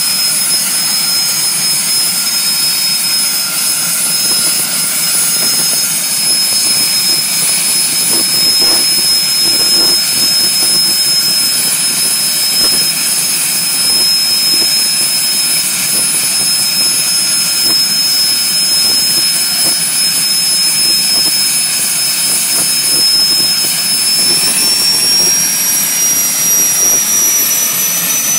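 Learjet 25's General Electric CJ610 turbojet engine running steadily during a ground run, a loud high-pitched whine over a rushing noise; the whine rises slightly in pitch near the end as the engine speeds up a little.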